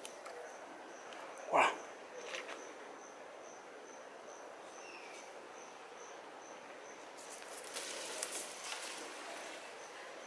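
Forest background with an insect giving a faint high chirp about three times a second, broken about one and a half seconds in by a single loud animal call that rises in pitch. Near the end there is rustling in dry leaves and palm fronds where green monkeys are moving about.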